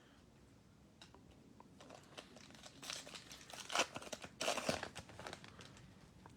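A foil trading-card pack being torn open and its wrapper crinkled, in several crackly bursts over the second half.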